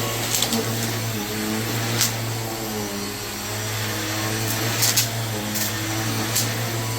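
Red Helix vacuum cleaner running with a steady motor hum. A few short, sharp clicks come about two seconds in and again from about five seconds on.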